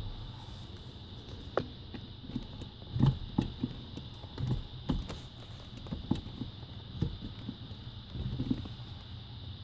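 Hydroboost brake pedal of a Buick Grand National being pressed and worked by foot, giving a series of irregular knocks and clicks over a steady low hum. The pedal is the one showing the hydroboost fault under test.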